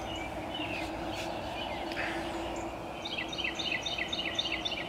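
A bird singing a fast run of short repeated chirps, about five a second, starting a little past the middle, over a faint steady hum.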